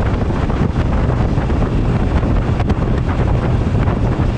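Wind buffeting the helmet or bike-mounted action camera's microphone on a motorcycle at road speed: a loud, steady rumble, with the bike's running and road noise underneath.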